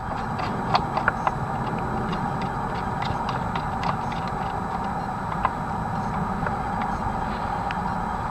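Small, irregular metal clicks and taps as a nut and washer are handled and fitted by hand onto the threaded body of a riding mower's ignition switch, over a steady background noise.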